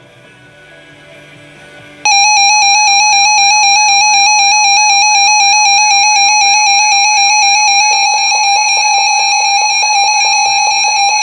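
Electronic weather-radio alert alarm: after a couple of seconds of faint sound, a loud, steady, buzzy tone starts abruptly with a fast repeating warble over it, and a few seconds later it turns into a rapid pulsing.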